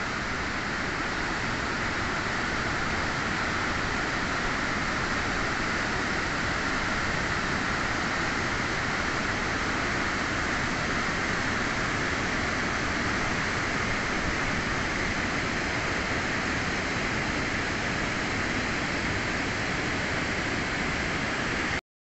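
Steep waterfall pouring over a rock face: a steady, even rush of falling water that cuts off suddenly near the end.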